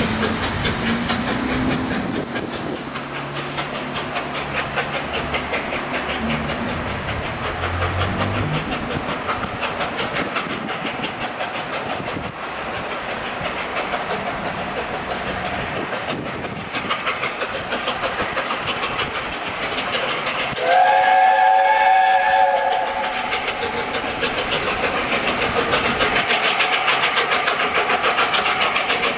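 LNER A4 Pacific steam locomotive 60007 'Sir Nigel Gresley' working a passenger train, its exhaust and the wheels on the rails running steadily. About two-thirds of the way through it sounds its chime whistle once, a chord of several notes held for about two seconds.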